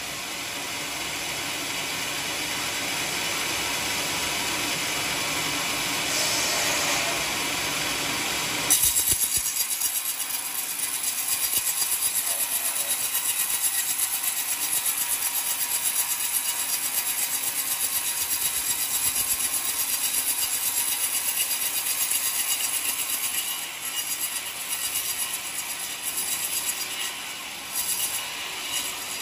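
Homemade band sawmill blade cutting lengthwise through an old coconut log, a steady sawing noise. About a third of the way in the sound changes abruptly: the low part drops out and a high hiss remains, rising and falling.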